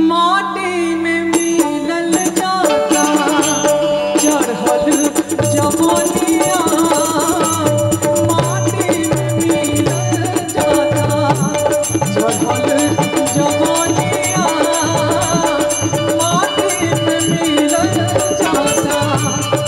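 A woman singing a Bhojpuri folk song live into a microphone over a band. Percussion comes in about two seconds in and keeps a quick, steady beat under her voice.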